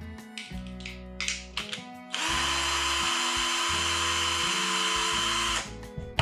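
SATA cordless drill-driver with a long driver bit running for about three and a half seconds, spinning a screw in the machine's carriage block, with a steady high whine that stops suddenly. A few light clicks of parts being handled come before it.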